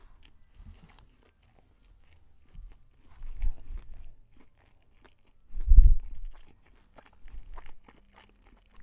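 Close-up chewing of a mouthful of crispy fried chicken sandwich, with many small crunches of the breaded fillet. A louder low, muffled sound comes about six seconds in.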